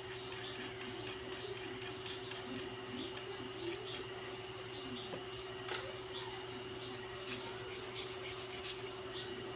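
Light scratching and small irregular ticks of a little brush scrubbing a watch-movement part held in metal tweezers in a metal tin of cleaning fluid, over a steady low hum; a cluster of sharper clicks comes near the end.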